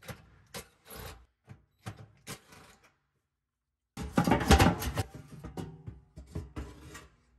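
Scattered clicks and knocks of hands and tools handling parts inside a steel oven cavity. The sound drops out completely for about a second. Then comes a louder clatter about four seconds in, trailing off into lighter taps.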